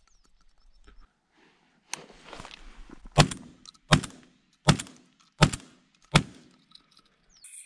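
A series of sharp knocks: one lighter knock, then five strong, evenly spaced impacts about three-quarters of a second apart, each dying away quickly.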